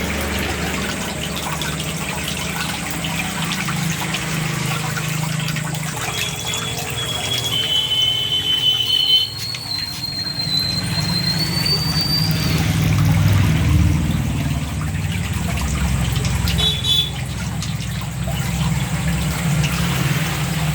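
Water running and splashing over a steady low hum, with a few thin, high whistling tones in the middle.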